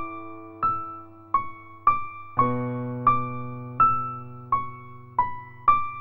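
Slow, gentle background piano music: single melody notes struck about every two-thirds of a second, each fading away, over held low chords that change about two and a half seconds in.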